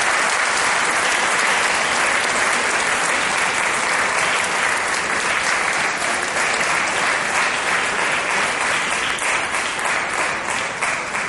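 Audience applauding steadily, thinning near the end into separate claps.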